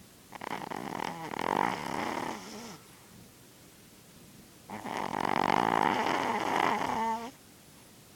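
A chihuahua with a head cold snoring loudly in her sleep: two long snores, each about two and a half seconds, a couple of seconds apart.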